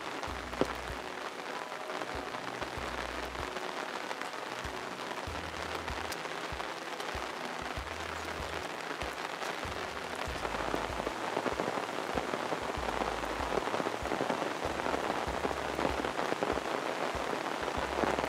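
Steady rain falling, an even hiss that gets louder about halfway through.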